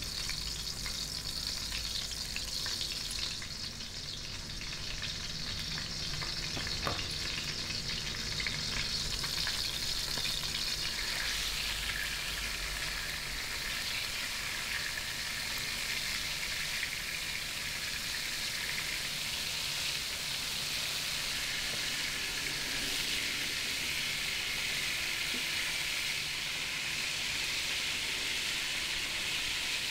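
Thin, flour-dusted veal fillets sizzling steadily as they brown in olive oil in a stainless steel pan, with a light click about seven seconds in.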